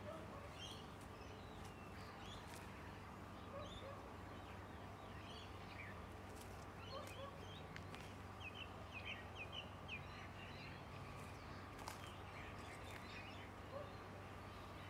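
Faint birdsong: scattered short chirps, with a quick run of about five repeated notes a little past the middle, over a steady low background hum.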